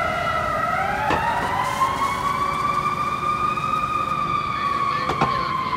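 Fire truck siren wailing: the pitch sinks, then climbs slowly from about a second in, holds high and begins to fall again near the end. Street traffic runs underneath.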